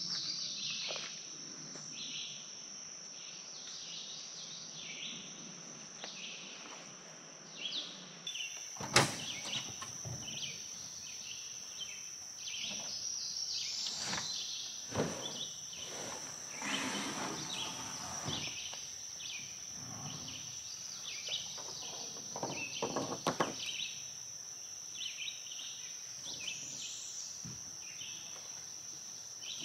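A steady high-pitched insect drone with birds chirping throughout. From about nine seconds in come scattered knocks and scrapes as a plastic kayak is slid off the back of a pickup truck.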